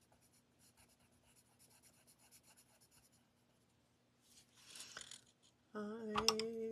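A coloured pencil scratching faintly on paper in quick short strokes as a stamped image is coloured in. A brief rustle of the hand and pencils follows, and a woman's voice starts near the end.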